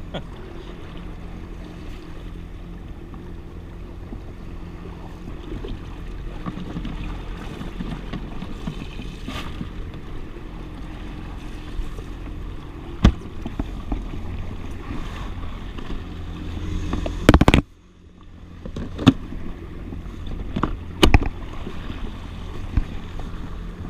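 Yamaha FX HO jet ski running at a steady low speed, its engine a constant low hum under water sloshing along the hull. A few sharp knocks and clunks from handling the fish cooler box on the back; the loudest comes about three-quarters of the way through as the lid shuts.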